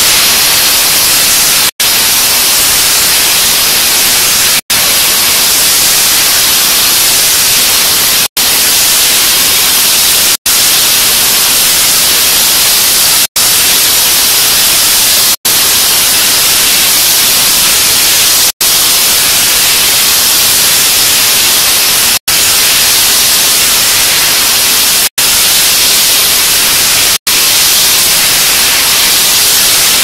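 Loud, steady spray hiss from a high-speed vial washing machine's water jets, broken by brief drop-outs to silence every two to four seconds.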